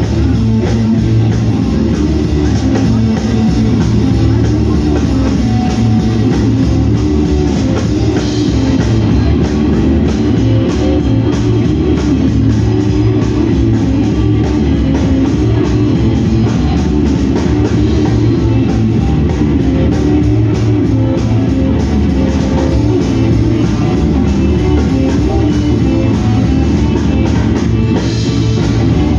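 Live blues-punk band playing loud: electric guitar over a drum kit, a steady full-band sound with no break.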